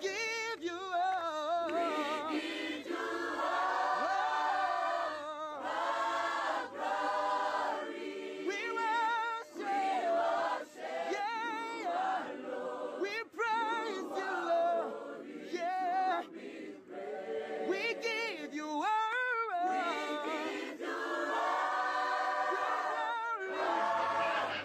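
Background music of several voices singing together like a choir, with long held notes that waver in pitch.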